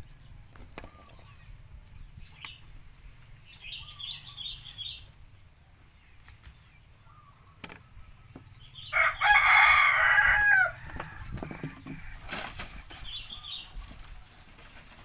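A rooster crows once, loudly, about nine seconds in, the call lasting nearly two seconds. Around it come faint clicks and rustles of young macaques handling and biting a bunch of bananas, and a few short high chirps.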